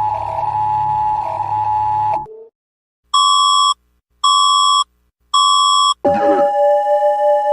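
Emergency alert tones: a steady tone that stops about two seconds in, then three identical long beeps about a second apart, then a new sustained two-note alarm tone that starts with a swell about six seconds in and pulses in loudness.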